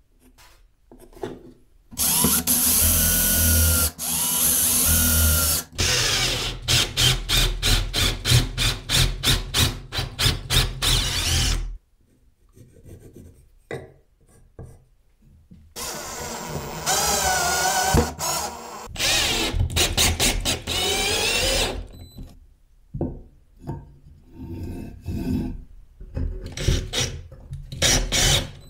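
Electric drill boring into a wooden block: a few seconds of steady motor running, then a run of quick, regular strokes about three a second, then more drilling with the motor's pitch wavering under load. Short scattered knocks and scrapes near the end.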